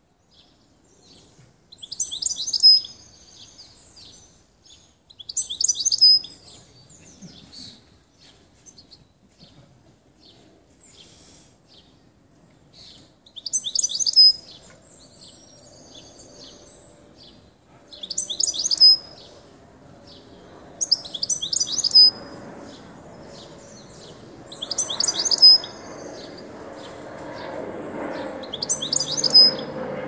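Caged European goldfinch singing in short bursts of fast, high twittering, each about a second long, seven times with gaps of a few seconds. A low rumble builds up underneath in the last third.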